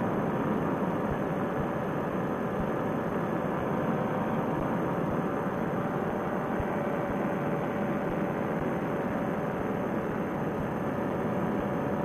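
Paramotor trike's engine and propeller running at a steady cruise under wind rush, heard through a Bluetooth headset microphone that cuts off the high end. The engine holds an even note, which the pilot reckons a fuel adjustment has smoothed out.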